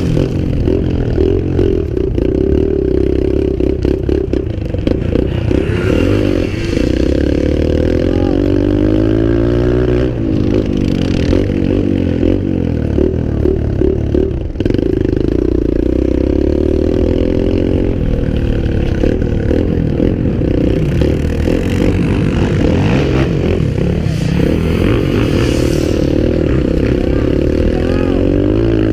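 Dirt bike engine running hard under throttle, its pitch rising and falling again and again with a few sudden drops.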